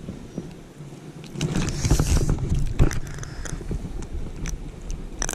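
Wind rumbling on the microphone, with rustling and small clicks of hands handling a small brown trout and working a spinner's hook out of its mouth. There is a brief hiss about two seconds in and a few sharper clicks near the end.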